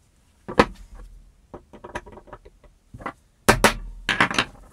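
Hand-drill parts knocking and clicking as they are handled on the workbench: one sharp knock about half a second in, scattered lighter clicks, then a cluster of loud knocks about three and a half seconds in.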